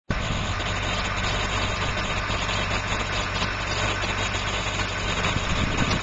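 New Holland TS115A tractor's diesel engine idling steadily.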